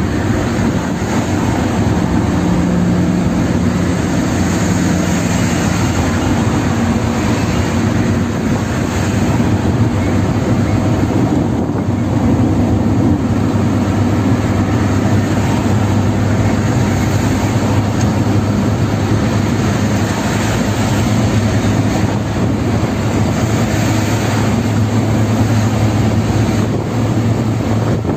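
Steady road noise inside a car driving at highway speed: tyre noise on the road surface over a low, even engine drone.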